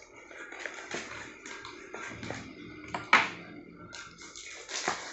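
Cardboard boxes being handled and opened: irregular scraping, rustling and tapping of cardboard, and a knife cutting packing tape, with one sharp loud scrape about three seconds in.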